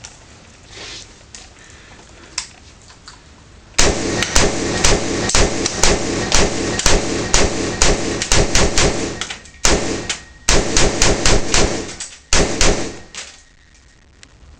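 Rapid semi-automatic fire from an AR-pattern carbine chambered in 7.62x39, shots following each other quickly in three strings with two short pauses, echoing between shots. The rifle is cycling and feeding without a stoppage.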